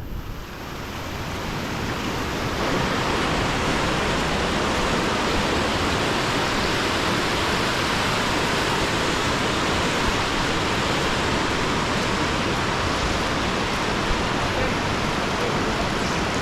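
Rushing water of a large waterfall: a steady, unbroken wash of noise that swells over the first two or three seconds and then holds level.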